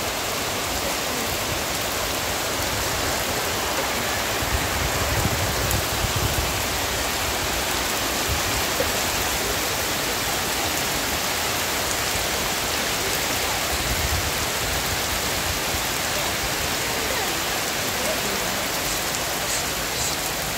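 Heavy rain falling steadily on banana leaves, garden plants and muddy ground, with water running off the edge of a thatched roof.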